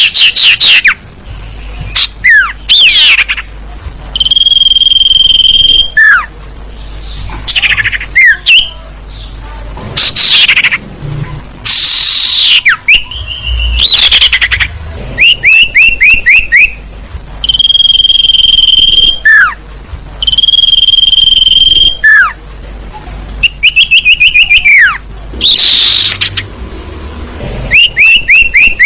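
Recorded calls of the sirtu bird played as a lure, loud and repeated. The phrases mix long, level whistles of about a second and a half, quick runs of short falling notes, and single whistles sweeping downward, with short gaps between them.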